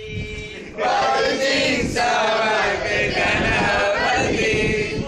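A group of men and women chanting loudly in unison, starting about a second in and lasting about four seconds.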